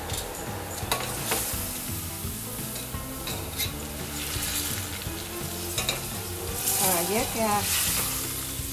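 Egg noodles deep-frying in hot oil in a stainless steel pot, sizzling steadily as they crisp. Metal tongs turning them click against the pot a few times.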